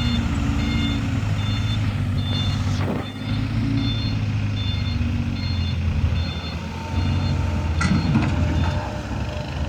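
A truck's reversing alarm beeps about twice a second over the steady running of a heavy engine. The beeping stops a little past halfway.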